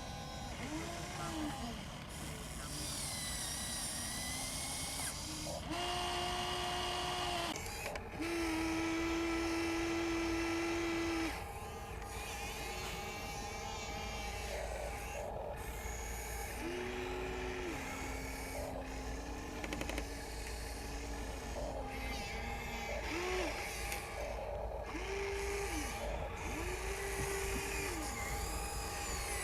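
Small electric motors of a radio-controlled excavator whining, starting and stopping again and again, each spin-up rising in pitch and then holding steady. The longest runs come about six and eight seconds in; after that come shorter bursts with overlapping tones.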